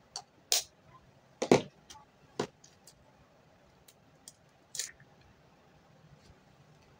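Hands handling bait ingredients and containers: about half a dozen short clicks and knocks, the loudest a dull knock about a second and a half in.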